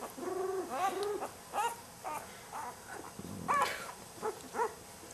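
Newborn golden retriever puppy crying in a string of about ten short, high whimpering squeals, the loudest about three and a half seconds in. It is protesting at being held upright during early handling exercises.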